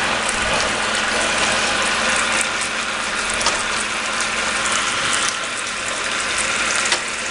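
Chicken pieces sizzling in a hot pan of garlic-ginger soy sauce, a steady dense crackle.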